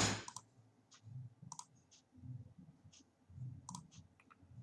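Computer mouse clicking: a handful of sharp, separate clicks spread over a few seconds, some in quick pairs, while a construction line is drawn and selected in CAD software. A short, louder burst of noise comes at the very start.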